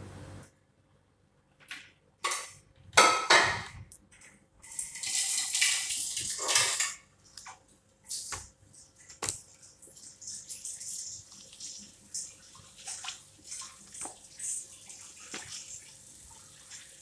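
Marrows being handled in a plastic bowl: irregular knocks, clatters and rubbing, loudest a few seconds in, with a rushing stretch soon after and then lighter taps.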